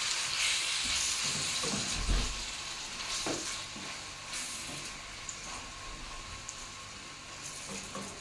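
Chicken breast strips sizzling as they fry in hot oil in a pan, with a couple of knocks of a utensil against the pan as they are spread out. The sizzle softens after about four seconds.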